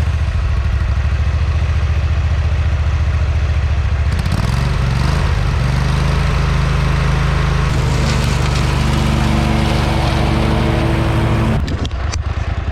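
A Craftsman lawn mower's small engine running through a car muffler taken off a 2005 Corvette, a loud, steady low exhaust note. Its pitch shifts about four seconds in and drops back near the end.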